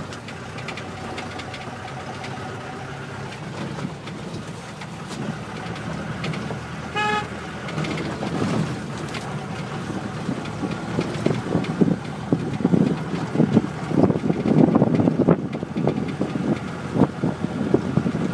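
A vehicle running steadily, with one short horn toot about seven seconds in. In the second half, uneven low buffeting rises over the running sound.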